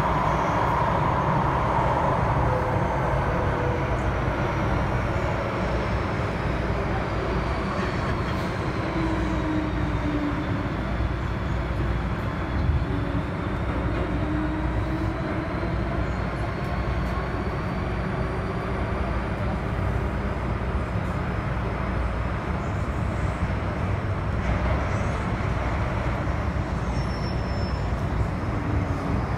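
Interior running noise of an MTR M-Train electric metro car in a tunnel: a steady rumble of wheels on rail. A faint motor whine over it slowly dips in pitch and rises again.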